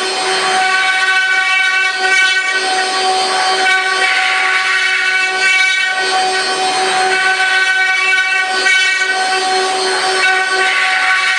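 An eight-spindle rotary wood-carving CNC router running, its spindles giving a steady high whine. A rougher hiss swells and fades every two to three seconds as the bits work the wood.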